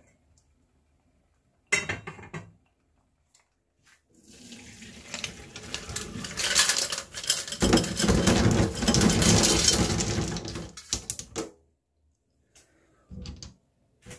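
A metal pot clatters, then the cooking water is poured off a pot of boiled top-shell sea snails into a sink for about seven seconds, heaviest in the middle, ending in a few clinks.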